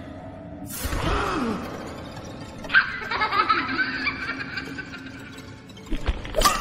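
Haunted-house sound effect of eerie, cackling laughter over spooky ambience, with a sudden bang about a second in and another sharp hit near the end.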